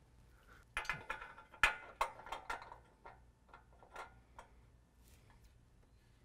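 Small metallic ticks and clicks of bolt hardware, washers and nuts being handled and fitted onto a bumper bracket's tab bolts. There is a quick run of clicks in the first couple of seconds, then a few scattered ticks.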